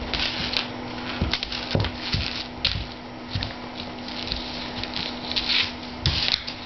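Newfoundland puppy scrabbling on a hardwood floor as she spins after her tail: irregular scratching of claws and fur on the wood and soft knocks of paws and body hitting the floor, over a steady low hum.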